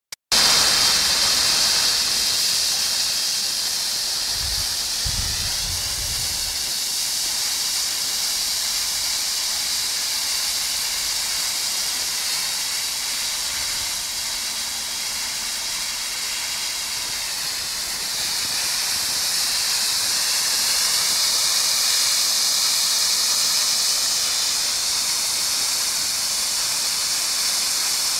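Homemade ammonium-nitrate fountain (ammonium nitrate, carbon, sulfur and aluminium shavings) burning with a loud, steady hiss as it throws a jet of sparks, starting abruptly right at the beginning.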